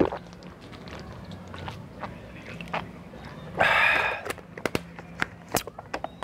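Drinking from a plastic water bottle: quiet swallowing, then a short loud breathy rush about three and a half seconds in, followed by a run of light clicks and crackles as the bottle's cap is screwed back on.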